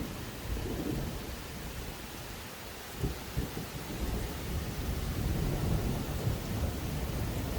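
Steady rain falling, with a low rumble of distant thunder that grows stronger about halfway through.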